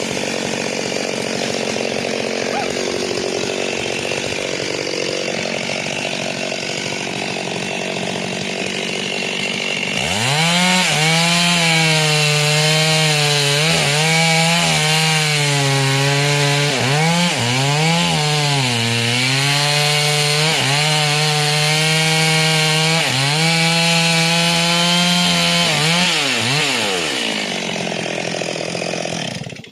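Two-stroke chainsaw cutting into a rain tree stump at full throttle. From about ten seconds in, the engine's pitch comes through clearly and dips repeatedly as the chain bites and bogs in the wood. Near the end the pitch drops away and the saw cuts off.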